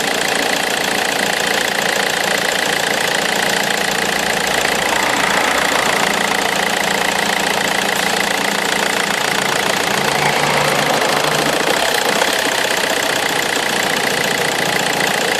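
Vauxhall Omega 2.2 DTi four-cylinder turbo-diesel idling steadily, close up, while warming from a stone-cold start. The rough cold idle is settling as the engine warms; the owner suspects a crack between the wastegate and the rest of the turbo.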